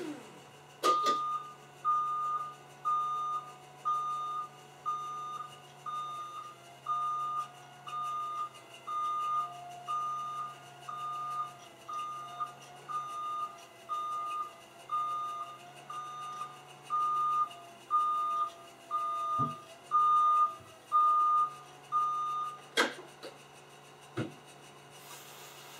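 Forklift warning alarm beeping about once a second, one high tone each time, over a low steady hum. The beeping stops near the end with a sharp click.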